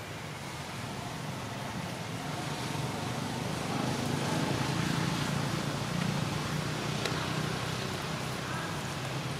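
Low rumble of a motor vehicle's engine, growing louder from about two seconds in and staying up, over general outdoor noise.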